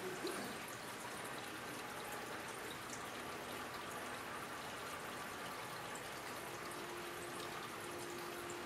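Aquarium filter running: a steady trickle and splash of water into the tank.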